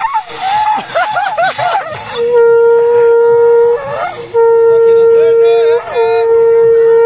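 A conch shell (shankha) blown as a trumpet. For about two seconds the pitch wavers and slides up and down. It then settles into a loud, steady note held in three long blasts separated by short breaks.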